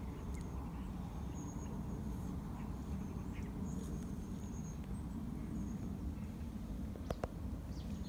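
Quiet countryside ambience: a steady low rumble, with faint, thin high-pitched calls now and then and two sharp clicks about seven seconds in.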